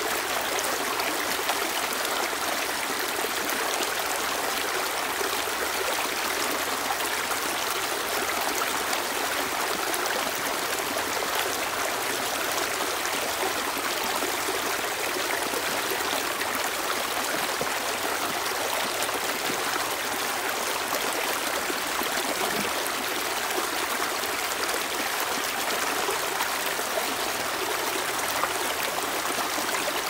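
Stream water pouring over rocks in a small cascade, a steady splashing and gurgling that never lets up.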